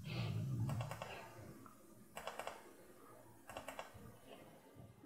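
Soft clicks of the push buttons on a Defenderr Fenix S wireless tattoo pen being pressed to switch its memory-mode voltage presets. There are short runs of clicks about a second in, at two seconds and at three and a half seconds, with a faint low hum in the first second and a half.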